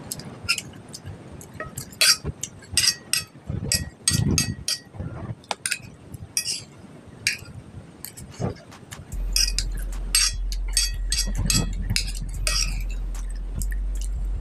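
A metal spoon clinks and scrapes against a glass plate again and again in short sharp strikes, mixed with mouth sounds of chewing. A low steady hum comes in about nine seconds in.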